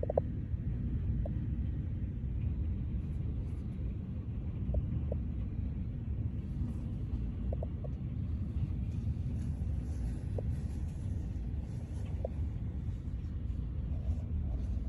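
Steady low rumble of distant thunder, with a few short faint blips above it.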